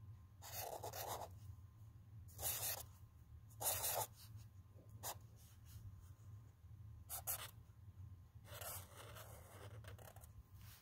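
Felt-tip marker writing digits on lined paper, in about six short bursts of strokes with pauses between, the longest near the end.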